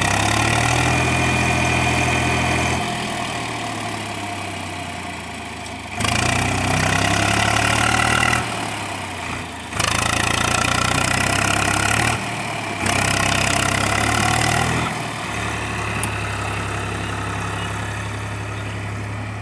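Swaraj 834 XM tractor's three-cylinder diesel engine working hard under load, revving up in four spells and dropping back between them. It is straining to pull a fully loaded sand trolley through deep sand.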